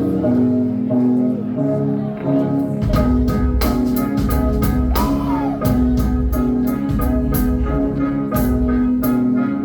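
Live band music: a repeating pitched loop, joined about three seconds in by deep bass and drums with sharp cymbal strokes keeping a steady beat.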